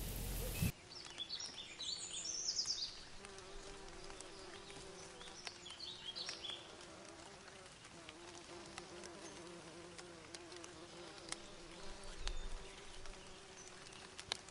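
A flying insect buzzing steadily with a wavering pitch, with a few short high bird chirps in the first few seconds and again briefly midway. A louder outdoor ambience cuts off suddenly under a second in.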